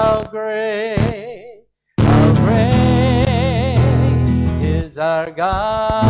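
A man's voice singing a hymn with instrumental accompaniment. The sound drops out to silence briefly just before two seconds in, then the singing resumes over fuller backing.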